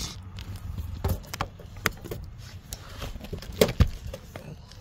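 Perforated aluminum gutter guard being handled and set into the end of a gutter: light scattered metal clicks and taps, with two sharper knocks in quick succession near the end.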